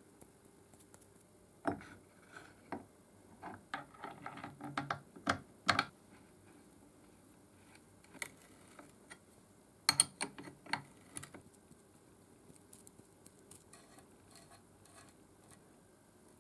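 Metal clicks and knocks from the cast-iron parts of a Beverly Shear B1 as it is fitted together on its greased pivot and the pivot bolt is held with wrenches. The knocks come in a busy cluster in the first few seconds and again past the middle, with only faint ticks near the end.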